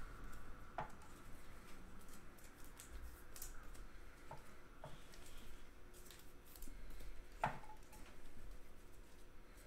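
Sports trading cards and packs being handled: faint scattered clicks and taps, the loudest about seven and a half seconds in.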